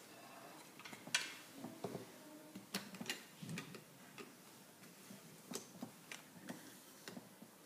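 Irregular small clicks and light knocks as a gas discharge tube is fitted by hand into the clips of its plastic holder, with the sharpest click about a second in.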